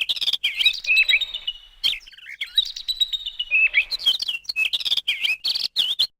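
Small birds chirping and twittering rapidly, many quick warbling calls overlapping, cutting off suddenly near the end.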